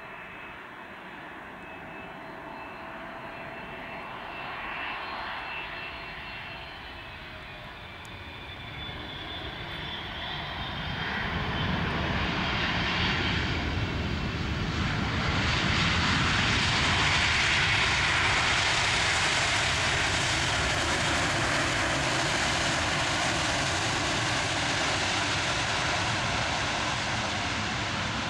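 Boeing 777 freighter's GE90 jet engines on landing. A faint steady whine on final approach gives way after touchdown to a loud rush of engine noise, loudest a few seconds after the wheels meet the runway as reverse thrust is applied, then easing slightly toward the end.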